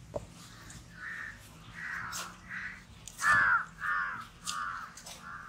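Crows cawing over and over, a short harsh call about every half second, the loudest a little past three seconds in.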